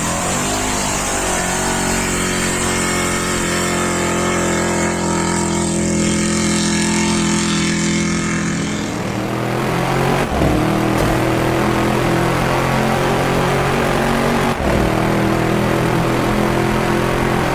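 Buggy car engine running at a steady, even speed, with a brief wobble in pitch near the start. About nine seconds in, the tone changes abruptly and the hiss drops away. There are short dropouts about a second later and again near the end.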